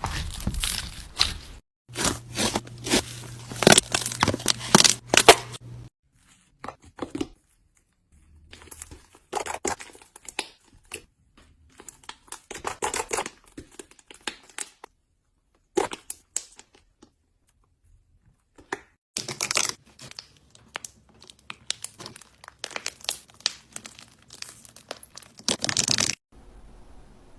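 Slime being stretched, squeezed and pulled apart, giving crackling, tearing sounds in clusters of a second or a few seconds, with short silences between them.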